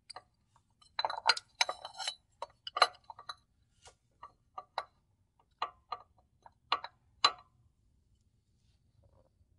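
Irregular sharp clicks and light knocks, bunched in the first couple of seconds and then single and spaced out until they stop about three-quarters through. This is the handling of a pipe pressed by hand over a riding mower's crankshaft to push a new crankshaft oil seal into the crankcase.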